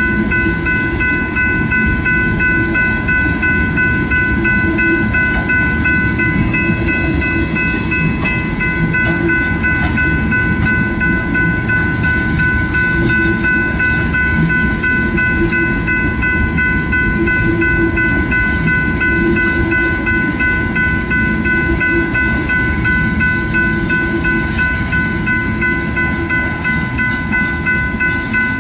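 Loaded tank cars of a freight train rolling past at a grade crossing, with a steady rumble and clatter of wheels on the rails. Over it, the crossing's warning bell rings on without a break.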